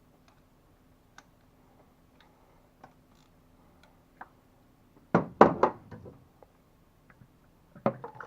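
Light scattered clicks and taps, then a quick run of loud knocks about five seconds in and another short run near the end, like metal parts and tools being handled during reassembly work.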